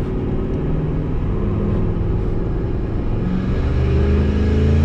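A turbocharged 2003 Ford F-150 5.4 L Triton V8 accelerating hard under boost, heard from inside the cab. The engine note climbs in pitch and gets louder over the last couple of seconds as the revs rise.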